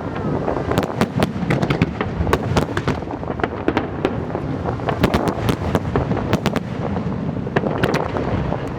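Fireworks going off in quick succession over the sea: many sharp cracks and bangs, several a second, over a continuous low rumble of booms.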